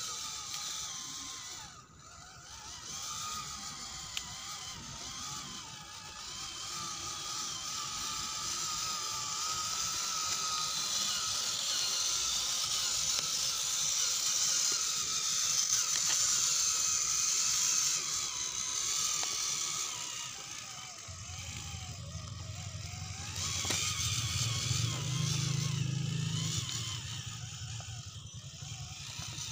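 Scale RC rock crawler's electric motor and geared drivetrain whining, the pitch wavering up and down with the throttle as it crawls over roots and dry leaves. A lower hum joins about two-thirds of the way through.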